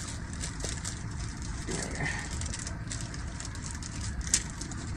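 Rustling and light clicking of a puffy zippered pouch being handled, with one sharper click a little after four seconds in.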